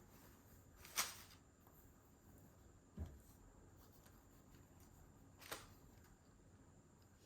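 Near silence broken by a few brief handling noises: a sharp rustle about a second in, a soft low thump a couple of seconds later, and another smaller rustle after that.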